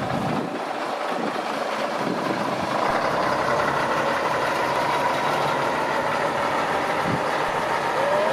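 Scania L113CRB city bus's rear-mounted six-cylinder diesel engine running as the bus pulls slowly past and turns, getting a little louder about three seconds in. A thin, steady whine sits over the engine note.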